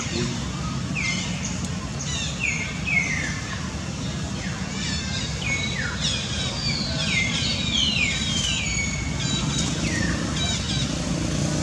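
Repeated short high-pitched animal calls, each gliding downward, coming about one or two a second and growing busier in the middle, over a steady low hum.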